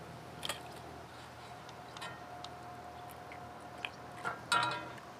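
Boiled shellfish shells and vegetables being scooped and shifted in a metal pot of stock with a metal mesh skimmer: soft wet crunching with a few light clicks, and a sharper metallic clatter with a short ring about four and a half seconds in.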